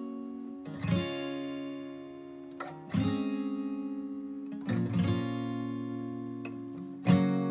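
Background music: acoustic guitar strumming chords, a new strum about every two seconds, each chord left to ring.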